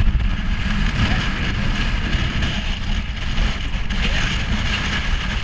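UTV driving over a rough dirt track, heard from its open rear seats: a steady low rumble of engine and tyres with road noise on top.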